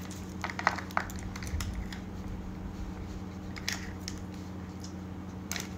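Scattered soft clicks and rustles of fingers handling a silicone nose implant and its small plastic packaging, over a steady low hum.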